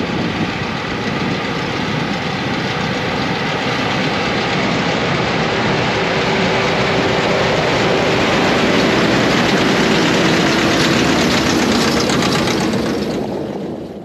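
Massey Ferguson 5711 tractors running under load as they pull round balers through the hay, engine drone mixed with the clatter of the balers, growing a little louder as they come near and fading out at the end.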